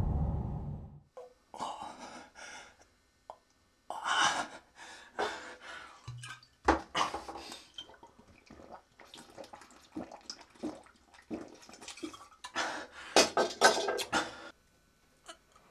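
A low rumble dies away in the first second. Then a wounded man's irregular, short, pained breaths and gasps with wet mouth sounds and small clicks, as he sucks blood from his fingers, thickest near the end.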